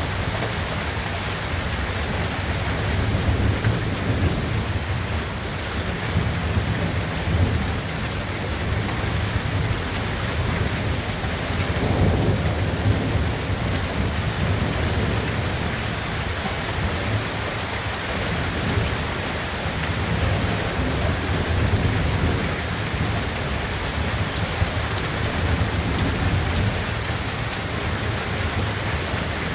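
Thunderstorm: steady heavy rain falling, with low rolling thunder that swells and fades several times, loudest about twelve seconds in.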